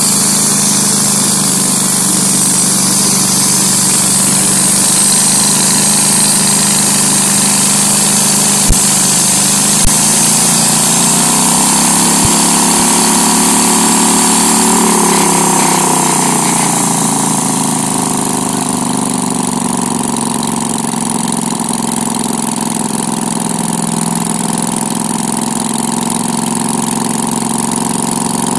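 Small engine of a homemade band sawmill running steadily. About a third of the way in there are two sharp clicks, then its pitch rises and falls once, and it runs a little quieter near the end.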